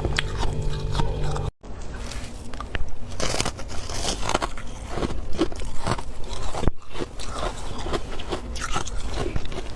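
Freezer frost being bitten and chewed close to the microphone: a quick run of crisp, crackly crunches. The sound cuts out briefly about one and a half seconds in.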